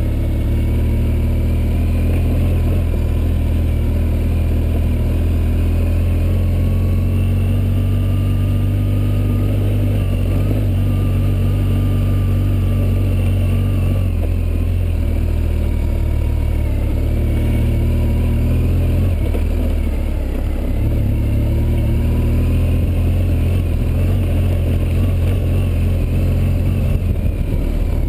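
Off-road vehicle engine running steadily as it travels along a dirt track, picked up by a camera mounted on the vehicle, with a heavy low rumble and a wavering engine whine above it.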